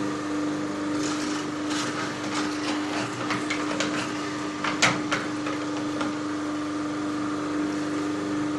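Champion 2000+ juicer running with its wheatgrass attachment, its motor giving a steady hum while leafy greens are pushed down the chute and crushed by the auger, with irregular crackling and snapping and one sharper crack about five seconds in.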